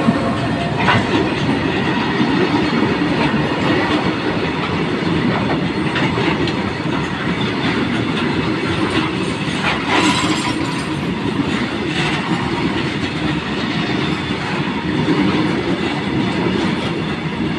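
Coal-laden open freight wagons rolling past close by: a steady rumble of steel wheels on the rails with clickety-clack over the rail joints. Sharper clanks come about a second, six, ten and twelve seconds in.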